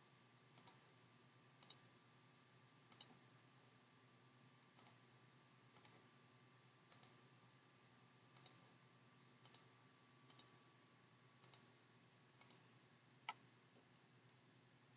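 Computer mouse button clicks about once a second, a dozen in all, many heard as a quick close pair, while PCB traces are routed by hand.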